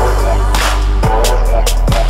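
Trap remix music: a deep, sustained bass with kick drum hits that drop in pitch about once a second, and snare and hi-hat hits on top.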